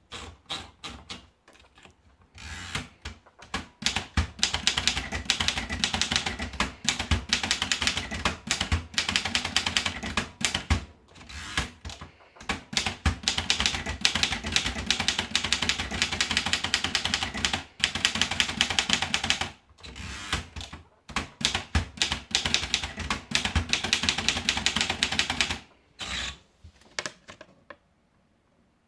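Erika Model M manual portable typewriter being typed on: fast runs of key strikes broken by short pauses, with a few slower strokes at the start, stopping near the end.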